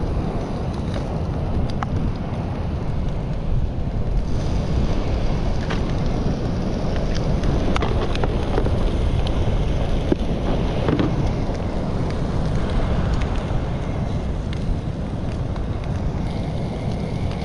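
Strong wind buffeting the microphone, a steady low rumble without any pitched tone.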